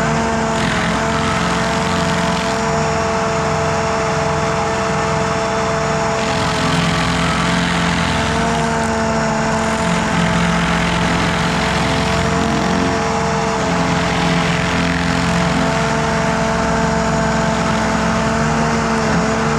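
Carlton SP6016TRX stump grinder running steadily, its engine holding one even pitch while the cutter wheel grinds a stump, the grinding noise swelling and easing every few seconds.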